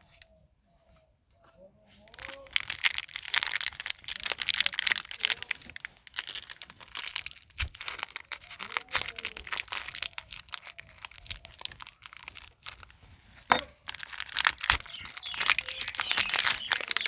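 Plastic wrapper of a new bearing being crinkled and torn open by hand: a dense crackling rustle starting about two seconds in and going on with short pauses, with one sharp crack about two-thirds of the way through.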